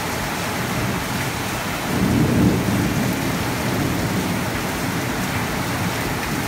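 Heavy downpour: a dense, steady hiss of rain pouring onto the street. A deeper rumble swells about two seconds in and dies back within a second or so.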